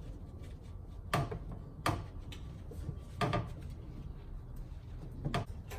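A rear disc-brake caliper is worked loose and shimmied off its bracket: four separate metal clunks, spaced one to two seconds apart, as it knocks against the bracket and rotor.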